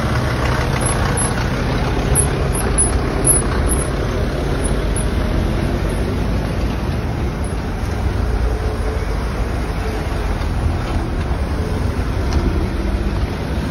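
Motor vehicle engine noise on a street: a steady low rumble with no distinct events.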